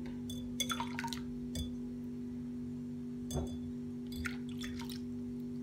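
Milk poured into a glass mixing bowl of whisked eggs and oil, with a few faint splashes and clinks against the glass, over a steady low hum.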